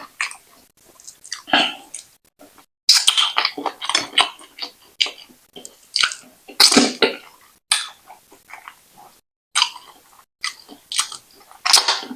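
Close-miked chewing of brown wheat fufu with ogbono soup: wet, irregular mouth sounds coming in bursts with short pauses between.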